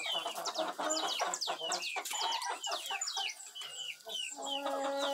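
A flock of chickens shut in a coop, clucking and calling with many short, high-pitched calls one after another; about four seconds in, one bird starts a long, steady call.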